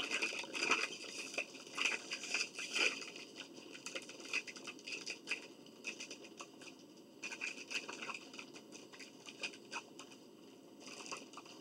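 Food packaging being handled, a crinkly potato-chip bag and a paper sandwich wrapper, giving irregular bursts of crinkling and rustling. It is busiest over the first three seconds and again around seven to nine seconds in.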